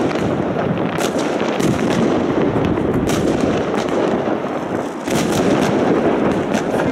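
Many fireworks going off across a city at once: a continuous rumble and crackle of distant bursts, with sharper bangs every half second or so. The din dips briefly about five seconds in, then picks up again.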